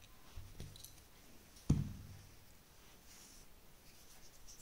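Quiet handling of crochet work and a metal crochet hook, with one sharp click a little under two seconds in and a couple of fainter taps before it.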